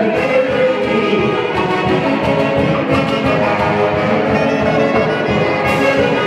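Festive band music with violins and wind instruments playing a lively tune over a steady beat.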